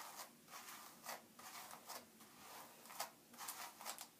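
Denman brush strokes through gel-coated hair: faint, quick scratchy brushing repeated about two to three times a second, with one sharper click about three seconds in.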